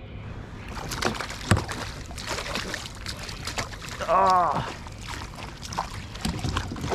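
Water splashing and sloshing around a kayak while a hooked Australian salmon is fought, with irregular sharp knocks and splashes, the strongest about a second and a half in.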